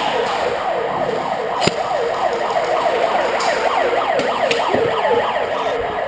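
A siren sounding, with quick rising and falling sweeps that overlap one another. Two sharp clicks cut through it, one near the second mark and one about halfway through.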